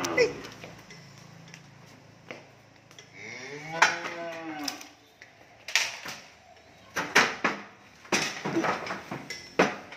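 Cow mooing: the tail end of one moo at the very start, then a long moo about three seconds in that rises and falls in pitch. In the second half comes a run of sharp knocks and clatters.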